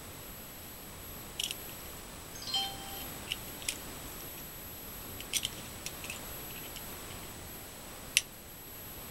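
Light plastic clicks and taps from a LINNSE 1080p camcorder being turned over and fiddled with in the hands, scattered irregularly with a brief squeak a few seconds in and the sharpest click near the end, over a steady hiss.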